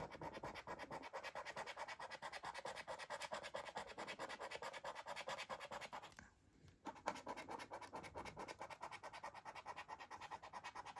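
A coin scratching the coating off a scratchcard in quick, even back-and-forth strokes, several a second. It is faint, and it stops briefly about six seconds in before carrying on.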